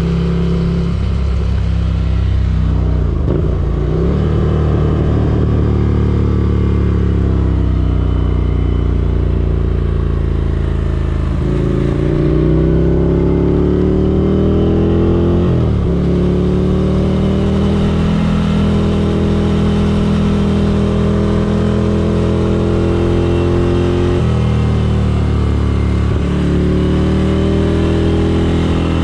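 Ducati Scrambler Desert Sled's air-cooled L-twin engine pulling under way. Its pitch climbs, then dips sharply at each gear change, several times.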